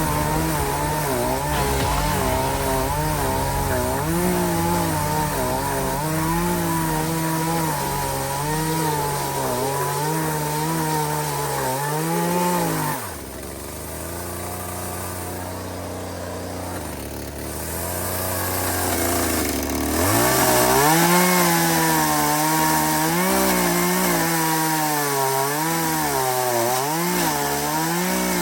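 Echo two-stroke chainsaw cutting a log, its engine pitch wavering as it bogs and recovers under load. About halfway it drops to idle for several seconds, then revs back up and cuts again.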